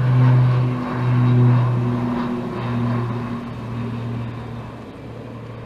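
Beechcraft 200 Super King Air's twin PT6A-60A turboprops at takeoff power, a low propeller drone with stacked overtones. It pulses slowly and fades steadily as the aircraft climbs away.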